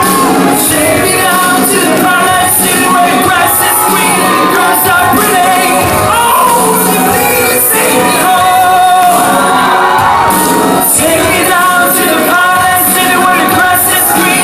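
Loud music with singing, played in a large hall, with shouts from the crowd.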